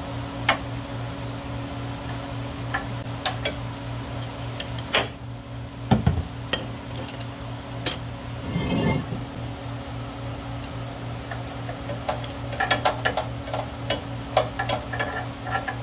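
Scattered metal clicks and clinks of a socket and extension working the oil drain plug, with a heavier thump about six seconds in and denser clicking near the end, over the steady hum of an electric fan.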